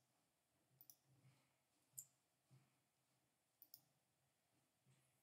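Faint clicks of a computer mouse, a handful of separate clicks, a couple of them in quick pairs, over near silence.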